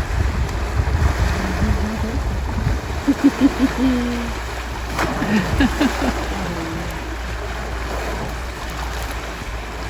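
Steady wind rushing and rumbling on the microphone, with a few short, faint pitched calls about three seconds in and again around five to six seconds.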